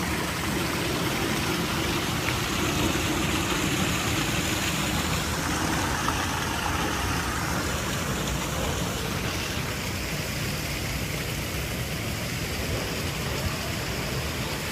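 Steady rush of flowing water in a lazy river, with a low rumble underneath.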